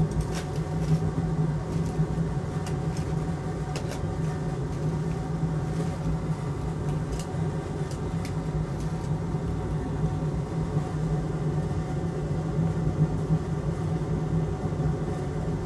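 Fume extractor fan running with a steady low hum and airflow noise. A few light clicks in the first half.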